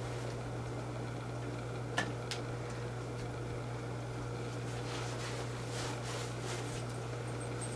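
Fiberglass casting tape being wrapped around a leg cast with gloved hands: faint crinkling and rubbing, with two sharp clicks about two seconds in, over a steady low hum.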